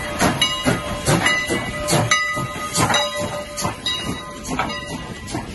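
Canadian National No. 89, a 2-6-0 steam locomotive, rolling slowly past at close range: sharp beats two or three times a second from its running gear, with hissing steam and a thin steady ringing tone underneath.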